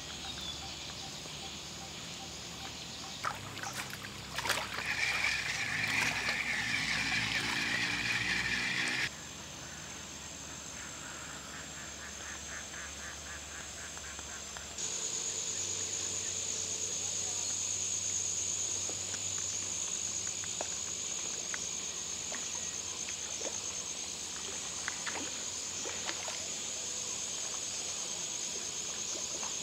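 Outdoor nature ambience: a steady high insect drone throughout, with a stretch of animal calls from about four to nine seconds in. The background changes abruptly twice, at edit cuts.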